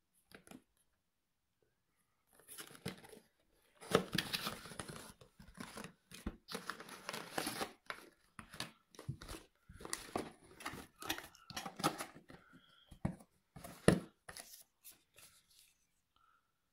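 Cardboard retail box being opened by hand: the inner tray slides out of its sleeve and the paper leaflet is pulled out, making irregular rustling and scraping with a few sharper knocks, the loudest near the end.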